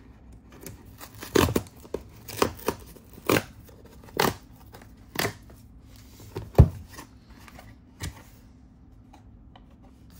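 Hands handling a cardboard product box: an irregular string of sharp taps, knocks and scrapes of cardboard through the first eight seconds, the loudest a thump about six and a half seconds in, then only faint ticks.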